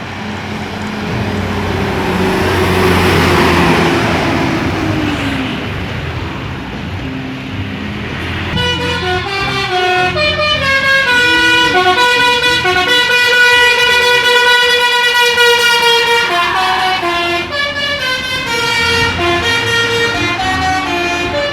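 A bus passing with engine and road noise, one tone in it sliding downward. Then, about eight seconds in, a multi-tone 'telolet' bus air horn plays a melody of held notes that change every half second or so.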